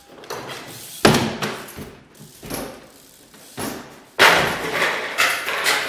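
Trials bike hopping and landing on wooden obstacles: a series of hard thumps and knocks, the loudest about a second in and several after about four seconds, each with the boomy echo of a large hall.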